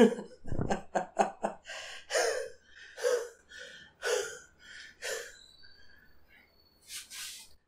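A person gasping and panting in ragged breaths: a quick run of short gasps about a second in, then slower, heavy breaths about once a second.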